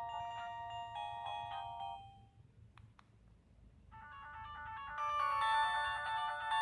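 Nokia 130 mobile phone ringtones: an electronic melody of clear beeping notes fades out, two faint clicks follow, and about four seconds in the next ringtone melody starts, turning fuller and louder about a second later.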